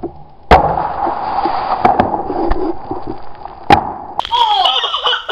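A shaken soda can slammed onto paving stones bursts with a sharp bang about half a second in, then sprays out with a steady hiss for about three and a half seconds, broken by two more sharp knocks. Near the end, kids' voices shriek over it.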